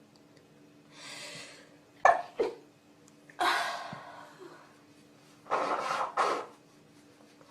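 A person coughing several times in short fits: a soft breath in at about a second, two short coughs, a longer cough midway, and a quick pair of coughs near the end.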